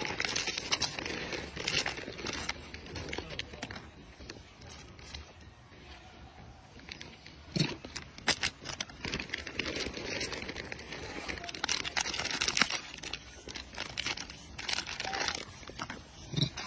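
Thin plastic snack wrappers crinkling and tearing as a macaque rips open packaged cakes, in irregular sharp crackles.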